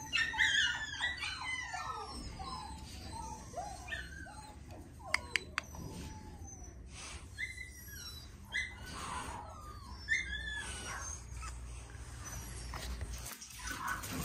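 Dogs whining and yelping: a quick flurry of short, high, rising-and-falling cries at first, then scattered single whines, with a few sharp clicks about five seconds in.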